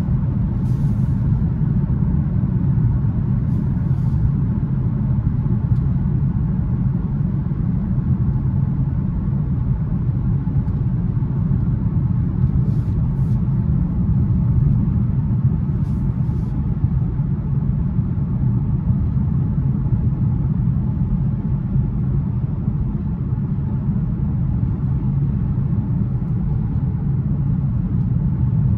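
Steady low rumble of road and tyre noise heard inside the cabin of a 2021 BMW 530i xDrive cruising at highway speed.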